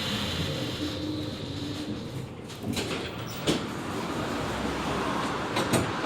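Inside a Končar TMK 2200 low-floor tram running along the track, a steady rumble with a few short sharp knocks and clicks, the loudest about halfway through and two more close together near the end.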